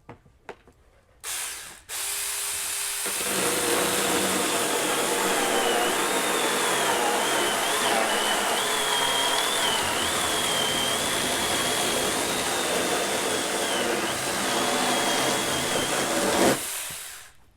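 A 20-volt battery-powered Shaker miniature chainsaw: a short burst of the motor about a second in, then it runs and cuts through a piece of 4-inch hardwood for about thirteen seconds, its high whine wavering under the load, and stops sharply near the end.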